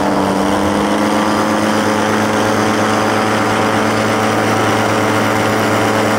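Powered paraglider's (paramotor's) engine and propeller running at a steady, even pitch, heard loud and close from aboard the aircraft in flight.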